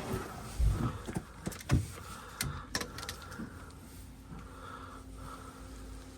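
Several irregular knocks and clunks of things being handled, loudest about two-thirds of a second and nearly two seconds in, then only a steady low hum.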